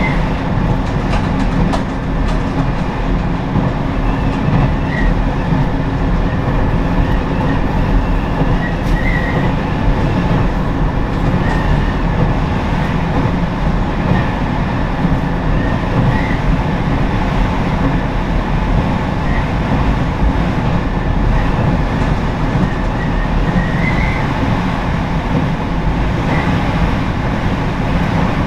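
Diesel railcar running along the track at steady speed: an even rumble of engine and wheels on rail, with brief faint squeaks every few seconds.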